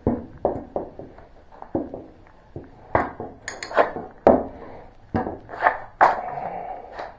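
Metal clinking and knocking of hand tools and bolts against a steel cutter blade as the blade bolts are fitted and tightened: a dozen or so irregular sharp knocks, the loudest about three, four and six seconds in.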